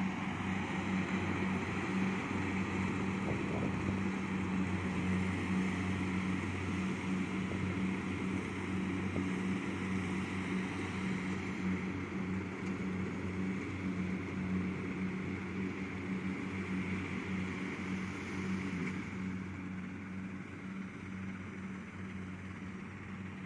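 Kubota DC70 Plus combine harvester's diesel engine running steadily with a low hum, growing somewhat quieter over the last few seconds.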